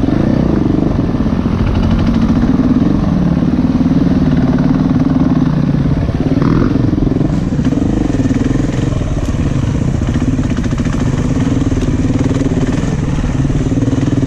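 Dual-sport dirt bike's engine running, heard from on the bike, its pitch rising and falling as the throttle is opened and eased on the trail.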